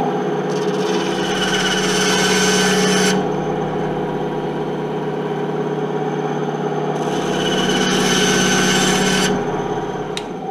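Small benchtop bandsaw running with a steady motor hum, its blade cutting a 3D-printed plastic tube twice, each cut a hiss of about three seconds. The saw runs down near the end.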